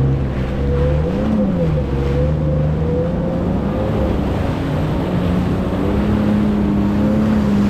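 Jet ski engine running, its pitch rising and falling briefly about a second in, then climbing slowly and holding higher as the craft picks up speed, with wind and water noise around it.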